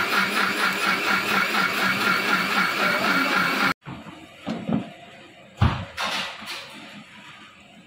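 Electric kitchen mixer grinder running steadily as it grinds fried onions and curd into a paste, then cutting off abruptly a little under four seconds in. A few knocks and clanks of the steel grinder jar against a steel bowl follow, the loudest just past halfway through.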